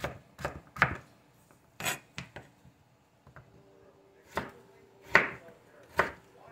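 Kitchen knife dicing sweet potato on a plastic cutting board: a quick run of chops, a pause of about two seconds, then a few slower, separate chops.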